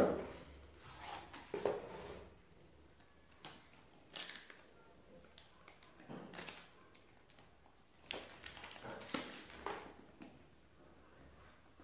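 Cardboard and paper packaging being handled and opened: a sharp knock at the start, then scattered rustling and scraping of the carton and paper wrap, in short bursts spaced a second or two apart.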